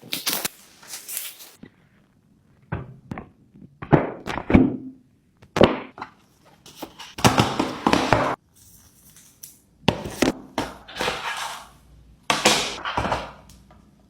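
Handling noise from unboxing a smartphone: irregular knocks and thunks of the box and packaging, with rustling and sliding bursts of a second or so, about a second in and then every second or two.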